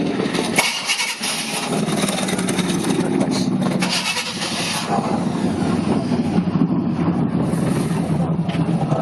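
A vehicle engine running steadily at a low, even pitch.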